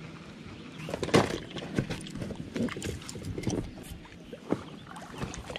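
Oars of a small inflatable boat being worked: a sharp knock about a second in, then irregular splashes and clunks as the blades dip and the oars move in their locks while rowing gets under way.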